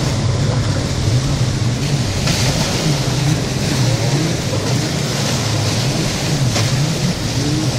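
Jet ski engine running, its pitch wavering up and down, over a steady rushing noise.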